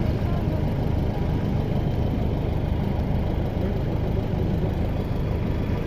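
Motorboat engine running steadily at an even speed.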